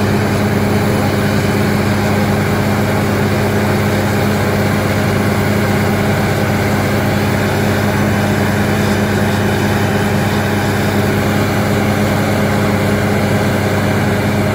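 Truck-mounted borewell drilling rig running steadily: its engine and air compressor make a loud, even, deep hum with a hiss over it.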